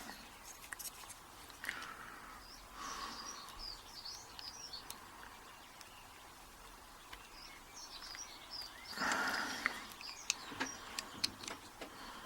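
Small birds chirping in the background, in two short spells, with faint scattered clicks and scrapes of small metal tools working at the retaining clip on a padlock's removable core.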